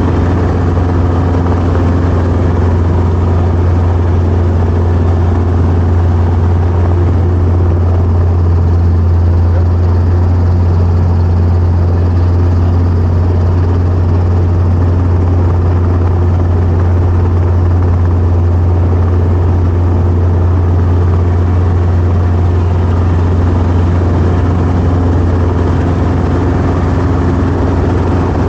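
Helicopter engine and rotors running steadily: a loud, constant low drone with a strong deep hum and no change in pitch.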